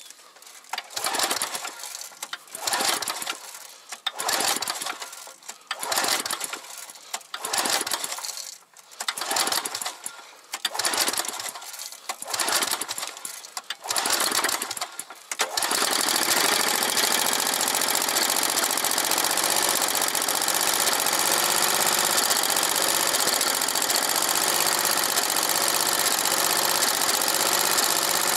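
Small gas engine on a hydraulic log splitter being pull-started: about ten pulls of the recoil starter, one every second and a half or so. About halfway through it catches and runs steadily.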